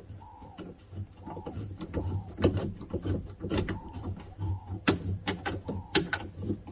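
Small ratchet working a bolt, with irregular sharp clicks as it is ratcheted in short strokes. A steady low hum and short repeated chirps run alongside.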